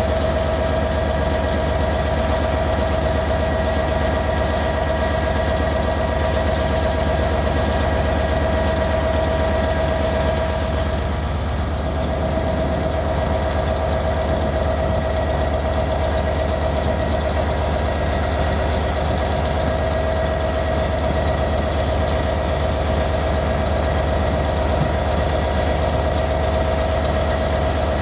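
Class 158 diesel multiple unit's underfloor diesel engines running as the train moves slowly through the station: a steady engine drone with a low rumble, easing briefly about eleven seconds in.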